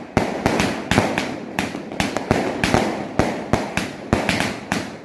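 Many firecrackers and fireworks going off at once, sharp bangs in an irregular barrage of several a second, overlapping and echoing.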